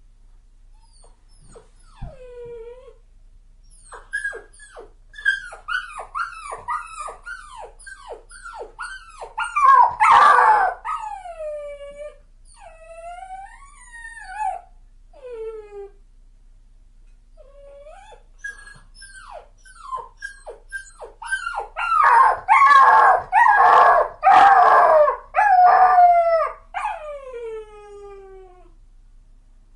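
A dog crying: rapid series of short, high whimpers that fall in pitch, broken by louder crying twice and by longer drawn-out whines that slide down at the end.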